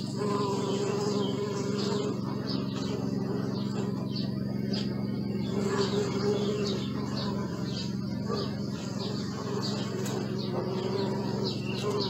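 Honeybees buzzing in a steady low hum, with a nearer bee's higher hum swelling and fading several times. Birds chirp repeatedly in the background.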